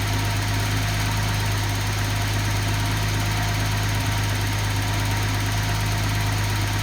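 Nissan 280ZX Turbo L28ET straight-six engine on a test stand idling steadily, running on its known-good ECU.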